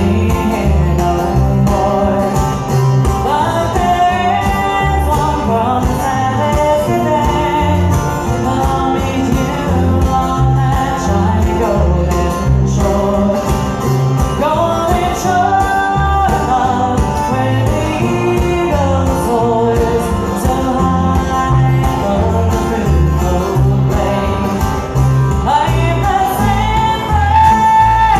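Live bluegrass band playing a song: singing over acoustic guitar and other string instruments, with the upright bass keeping a steady beat underneath.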